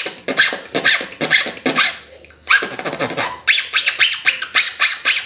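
Beatboxed high-pitch zipper, or mouse squeak: air sucked in through a small gap at one side of tightly pressed lips, rolled into a quick run of squeaky strokes. There is a short pause about two seconds in, then a second, denser run.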